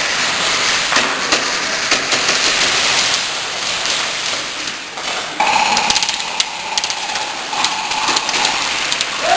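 Airsoft guns firing rapidly, a dense clatter of shots and clicks. About halfway through, a steady high-pitched tone joins in.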